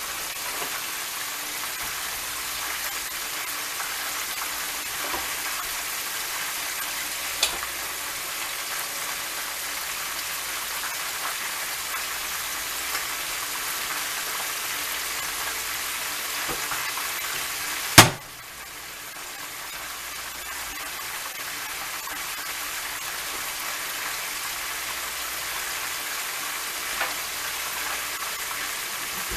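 Chicken wings deep-frying in a pot of hot oil: a steady sizzle with a few small pops. One sharp, loud click comes about two-thirds of the way through.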